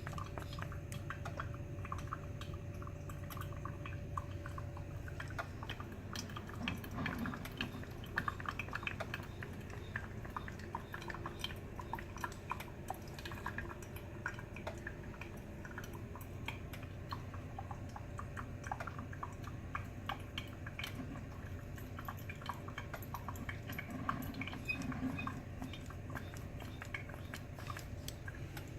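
Brew Express built-in coffee maker brewing a vinegar-and-water cleaning solution fed under pressure: irregular crackling and dripping over a steady low hum.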